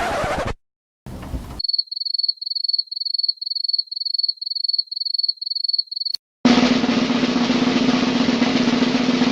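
A string of separate stock sound effects cut together with silent gaps. First come two short noise bursts. Then a high beep repeats evenly, about two to three times a second, for some four seconds. A click follows, then a drum roll runs through the last three seconds.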